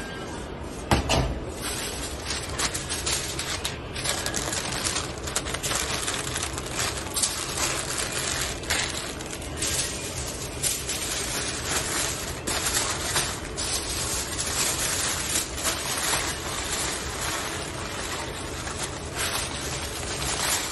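Aluminium foil and butter paper crinkling and rustling as they are folded and pressed around a joint of lamb, with a sharp thump about a second in.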